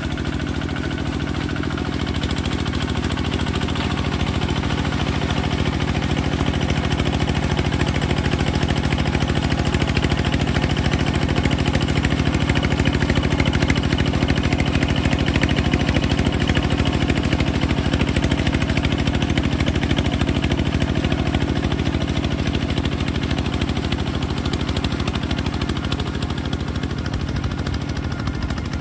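Bulldozer engine running steadily, a little louder through the middle and easing off slightly toward the end.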